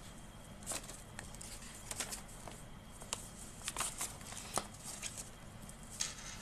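Scattered light clicks and rustles of small things being handled close to the microphone, about a dozen at irregular intervals over a faint steady room background.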